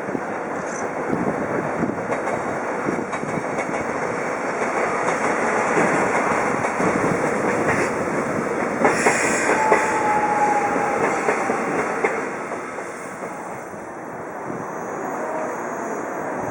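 Train running through the station at close range, its wheels clattering over the rail joints, with a short wheel squeal about ten seconds in. The noise eases somewhat after about twelve seconds.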